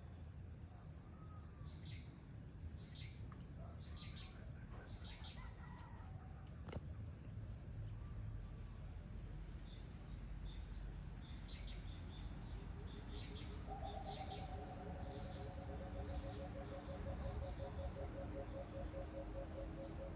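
Evening countryside ambience: a steady high-pitched insect drone, with short bird chirps scattered through it. From about 14 seconds in, a long, drawn-out lower call with several pitches, slightly pulsing and falling a little, runs over a low rumble.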